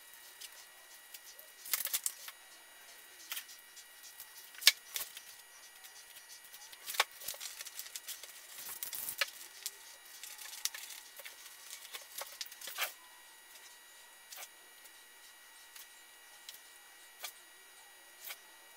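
Clear plastic film being cut with scissors and smoothed by hand over seat foam: scattered crinkles, rustles and sharp clicks that thin out in the last few seconds.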